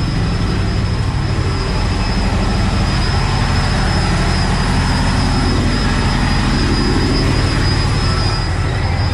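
A shrimp boat's engine running steadily on board: a loud, even low drone with a broad rushing noise over it and a faint high whine.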